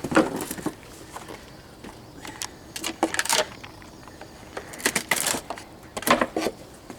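Wooden boards from an old swing knocking and clattering as they are broken apart and handled, in several irregular clusters of sharp knocks.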